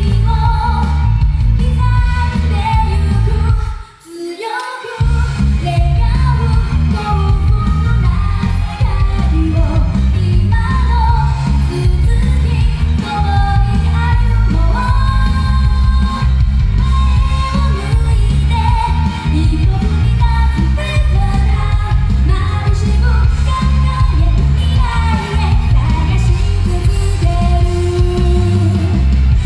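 A woman sings a Japanese-language pop song live into a handheld microphone over loud backing music with a heavy bass. The backing music drops out briefly about four seconds in, then comes back in full.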